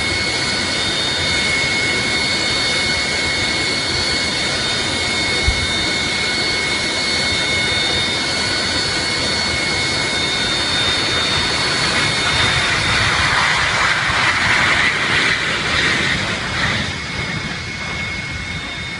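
Jet airliner's engines running at high power: a steady roar with a high whine held throughout. The roar swells and turns rougher about two-thirds of the way through, then eases near the end.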